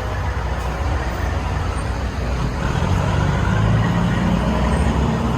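Street traffic noise with a vehicle engine running close by, its low steady hum getting stronger about halfway through.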